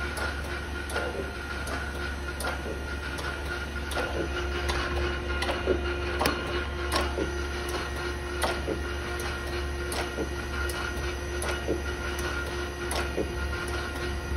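Okamoto 6" x 18" surface grinder running on its hydraulics, the table traversing at speed: a steady hum and whine with a second tone joining about four seconds in, and frequent sharp clicks and knocks from the moving table.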